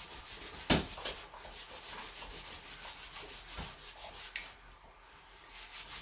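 Sandpaper rubbed by hand over a car's painted body panel in quick, even back-and-forth strokes, about five a second, scuffing down the paint. A sharp knock sounds near the start, and the strokes stop for about a second a little past the middle before resuming.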